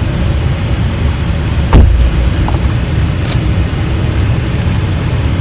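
Steady low rumble of a road vehicle on the move, with one loud thump about two seconds in.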